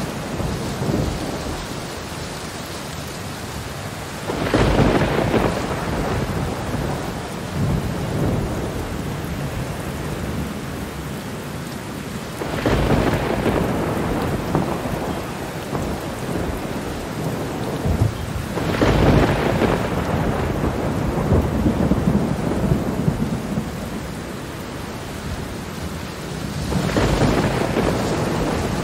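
Steady heavy rain with thunder rolling in four times, roughly every seven or eight seconds; each roll starts suddenly and dies away over a few seconds.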